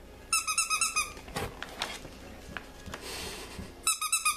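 A squeaky dog toy squeezed rapidly: two bursts of quick, same-pitched squeaks, each lasting under a second, one near the start and one near the end, with soft rustling between.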